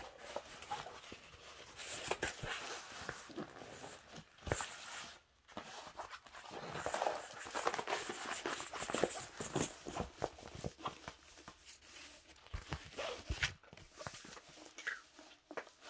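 Rustling and crinkling of a large diamond painting canvas and its plastic cover film being handled and unrolled, with scattered small taps.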